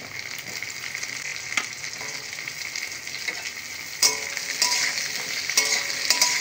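Potato sticks sizzling in hot oil in a metal kadai. From about four seconds in, a metal spatula stirring them knocks and scrapes against the pan with short ringing clanks.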